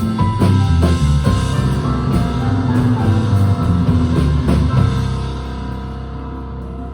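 Live rock band playing an instrumental passage with drum kit, bass and electric guitar. The drums stop about five seconds in, leaving a sustained chord ringing out more quietly.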